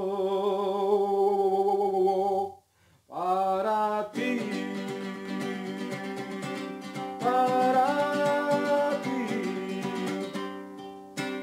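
A singer holds a long note with vibrato to the accompaniment of a small strummed guitar. The music breaks off briefly about two and a half seconds in, then the guitar strumming resumes with the voice carrying on over it.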